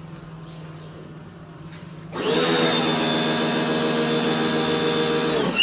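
Pioneer P1 pressure washer starting up about two seconds in, its motor and pump running with a steady hum under the hiss of the spray from the foam-bottle lance, then cutting off suddenly near the end as the trigger is let go.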